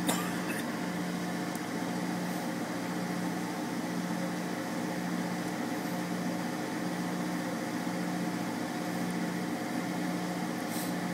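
Steady low mechanical hum of a parked vehicle, heard from inside its cab, with a faint tick right at the start and another near the end.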